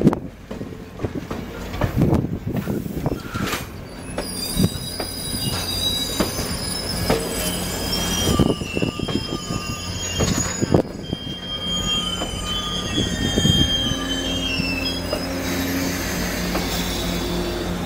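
Passenger cars of the Grand Canyon Railway train rolling past, their steel wheels squealing against the rails in high, shifting tones from about four seconds in. Under the squeal run a steady rumble and clicks and knocks of the wheels on the track.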